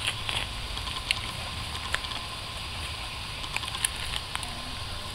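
Soil being scraped and brushed off a flush stone grave marker by gloved hands and a small hand tool: scattered small scratches and clicks over a low steady rumble.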